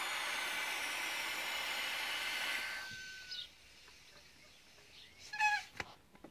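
Hydrogen hissing out of the cylinder's regulator into a balloon, with a faint thin whistle over it; the flow stops about three seconds in. Near the end come a few short high chirps or squeaks, one of them the loudest sound here.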